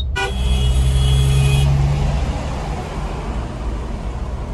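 Driving noise inside a diesel Mahindra Thar's cabin: a steady low engine and road rumble. A louder droning hum swells and fades over the first two seconds or so.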